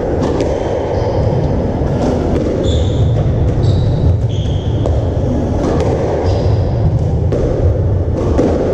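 Squash rally: the ball smacking off the walls and racquets roughly once a second, with short shoe squeaks on the wooden court floor between hits, over a steady low hall rumble.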